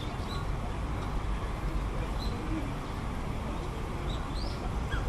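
A few short, high bird calls, one of them a quick up-and-down chirp near the end, over a steady low rumble of city background noise.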